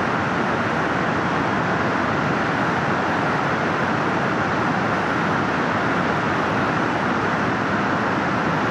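Floodwater of the swollen Godavari River rushing and churning over submerged steps and shrines: a steady, loud rush of water.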